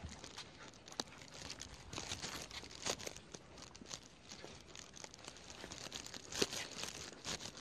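Faint rustling and crinkling with scattered light clicks and taps, the clearest about a second in, near three seconds and about six and a half seconds in.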